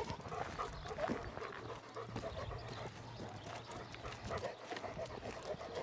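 Footsteps and dogs' paws crunching on a gravel-and-dirt track in an irregular walking rhythm, with a dog panting.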